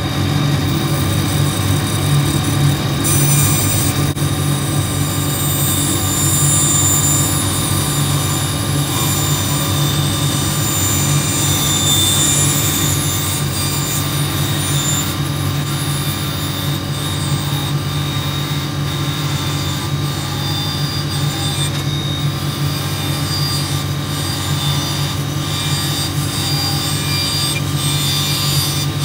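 Large floor-standing bandsaw running steadily while its blade cuts along the curved edge of softwood Gothic arch trim pieces, a constant machine hum with a high hiss from the blade in the wood.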